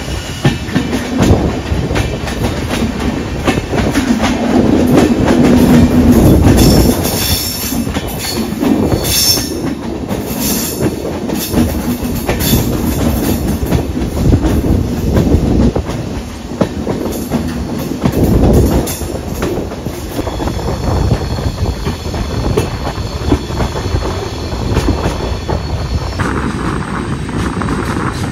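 Passenger train coaches running slowly down a steep ghat gradient: a steady rumble with wheels clacking over rail joints, and brief high-pitched wheel squeal about a third of the way in. The sound changes abruptly near the end.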